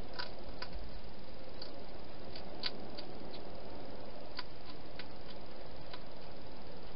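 A hedgehog eating from a dish inside a plastic feeding box: irregular small clicks and ticks of crunching food, about a dozen scattered through, over a steady hiss.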